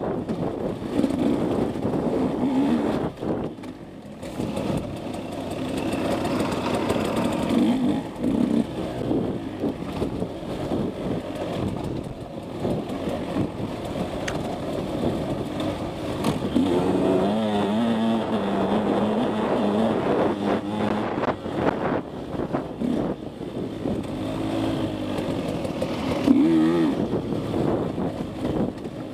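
KTM 150 SX's single-cylinder two-stroke engine being ridden hard on a dirt trail, revving up and dropping back again and again, with a quick rev near the end.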